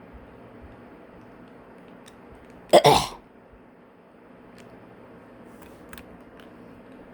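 A single short cough about three seconds in. Around it are a few faint, sharp plastic clicks of Rubik's cube pieces being fitted back on.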